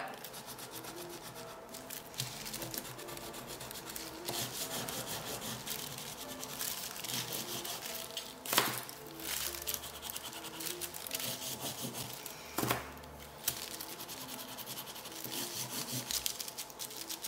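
Soft pastel sticks scratching and rubbing across textured pastel paper in quick short strokes, with a couple of louder knocks about halfway through. Soft background music plays underneath.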